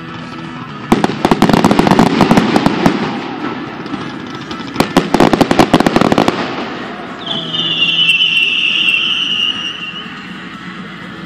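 Aerial fireworks crackling: two volleys of dense, rapid crackles, one starting about a second in and another near the middle, each under two seconds long. Then comes a high, steady hiss for about three seconds.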